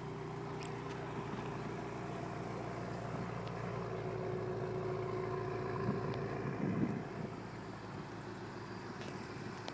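BMW M5 F10's twin-turbocharged 4.4-litre V8 idling steadily.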